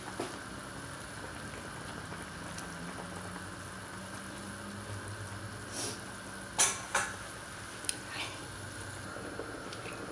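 Chicken soup boiling hard in a pot on a gas stove, a steady bubbling hiss. Partway through come a few sharp clinks and knocks against the pot as the glass lid goes on, the loudest about two-thirds of the way in.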